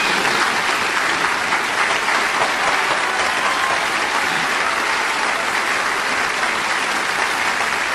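A large crowd applauding steadily, a dense sustained clapping.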